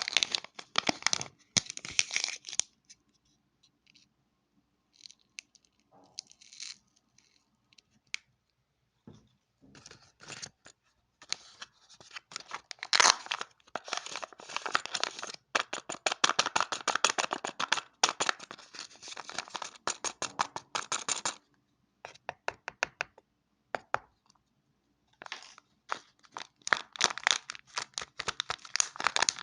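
Toy packaging being torn open and crinkled by hand, in several bouts of dense crackling with pauses between them; the longest bout runs from about ten seconds in to about twenty-one seconds in.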